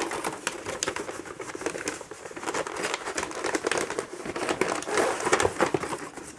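Packaging crinkling and rustling as it is handled by hand, a dense crackle that swells loudest about five seconds in.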